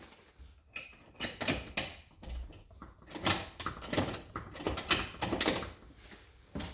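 Irregular knocks, clunks and scrapes of hands and tools working on an ATV track kit as the track is shifted and fitted onto the hub, several sharp knocks a second in the middle stretch.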